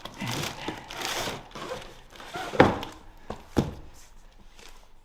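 Paper scrapbooks being handled: short rustles of pages, then two dull thuds about a second apart as they are moved.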